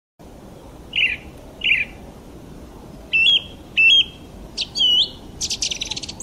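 Recorded birdsong laid in as a sound effect: two short downward chirps, then several clear whistles that step up in pitch, ending in a quick, higher trill. A faint hiss runs underneath.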